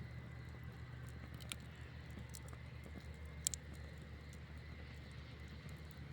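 Campfire burning with a faint steady low rumble and scattered crackles, with two sharper pops, the louder about three and a half seconds in.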